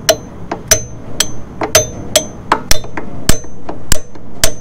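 Hammer tapping a hub cap wrench, about ten sharp strikes roughly two a second, each with a short high ring. The strikes are breaking loose a plastic oil bath hub cap on a Dexter trailer axle that was screwed on too tight to turn by hand.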